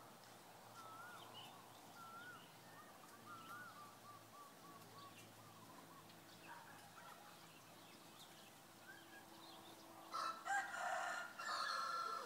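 A rooster crowing once, a single call of about two seconds near the end and the loudest sound here. Earlier, faint short chirps of small birds.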